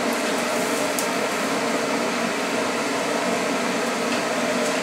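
Breaded pork chops deep-frying in hot oil in a countertop deep fryer: a steady sizzle, with one light click about a second in.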